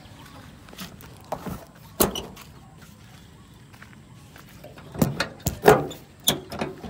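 Scattered knocks and clacks of hands and a rag working against a truck's plastic front bumper and grille: a single one about two seconds in, then a quick cluster a little after five seconds.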